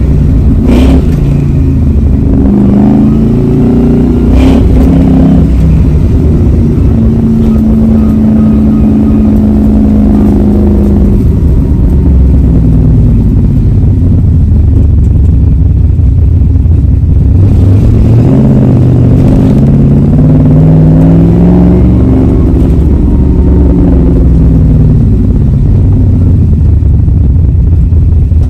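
1965 Ford Mustang's 289 V8, fed one barrel per cylinder by an individual-runner setup with twin 1200 cfm venturiless Holley carburetors and exhausting through Tri-Y headers, running hard on the road. Its pitch climbs and drops as it accelerates and eases off, holding steady for a few seconds partway through, with a few short sharp cracks among the engine note.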